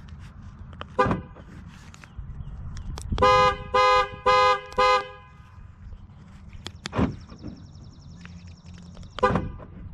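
Pickup truck horn honking four times in quick succession, set off from the key fob, with shorter single sounds a few seconds before and after.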